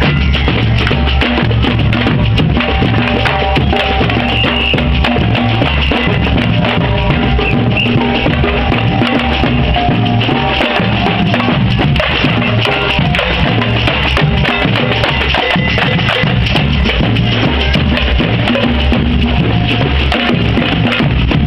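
Samba band playing batucada: deep surdo bass drums beating under dense, driving strokes on metal-shelled snare-type drums, loud and unbroken.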